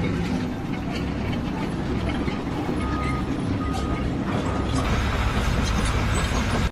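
Steady low rumble of a running machine or vehicle, with scattered clicks and knocks and a few brief high tones.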